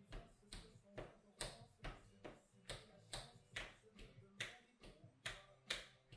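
Tap shoes striking a wooden tap board in a steady rhythm, about two and a half sharp taps a second, some louder than others.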